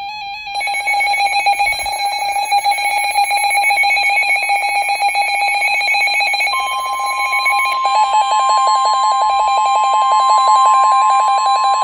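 Weather alert radio sounding its electronic alarm for a severe thunderstorm warning: a loud, rapidly pulsing beep tone. About six and a half seconds in, the steady weather radio warning tone joins it.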